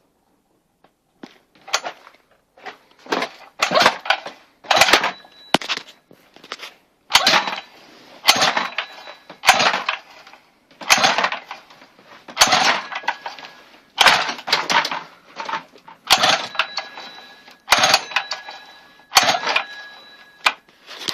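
An engine being turned over again and again in short attempts of about a second each, never catching: it will not start.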